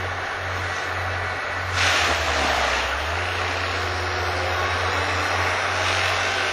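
TimberPro TB630 forestry machine's diesel engine running steadily, with a sudden loud burst of chipping noise a little under two seconds in as the Risley mulching head bites into a tree. The engine pitch sags under the load for about a second, then the machine runs on steadily.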